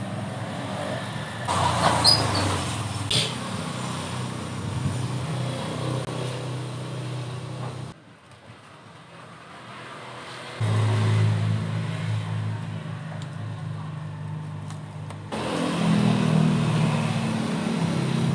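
A motor running with a steady low hum. It breaks off abruptly about 8 seconds in and comes back about two and a half seconds later. There are a few light clicks near the start.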